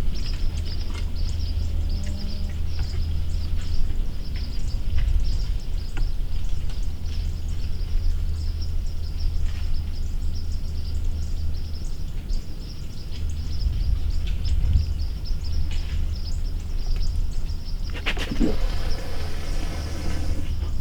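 Woodland ambience: a steady low rumble with steady high chirping over it and scattered small ticks, then a few seconds of rustling near the end.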